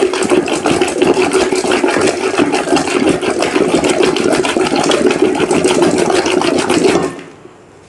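Wooden hand churner (madhani) spun rapidly in a steel pot of yogurt, mango and ice, churning lassi: a fast, steady rattling slosh that stops abruptly about seven seconds in.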